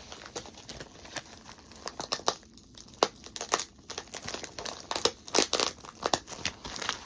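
A mail package being torn open and its packaging crumpled and rustled by hand, in irregular crackles and tears that grow busier over the last few seconds.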